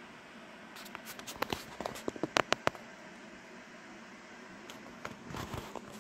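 Handling noise: a quick run of sharp clicks and crackles over the first few seconds, then a brief rustle near the end, over faint room hiss.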